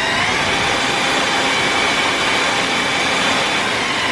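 Cordless Milwaukee impact driver running at steady speed with a high whine, spinning a small DC motor used as a generator that drives only a defroster's indicator light, so there is almost no load on it.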